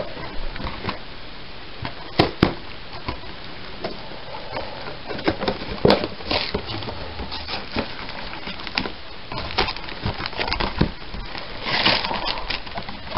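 Cardboard LEGO set box being opened by hand, its flaps crackling and tearing with scattered sharp clicks. Near the end, a denser burst of crinkling as the plastic bags of parts slide out of the box.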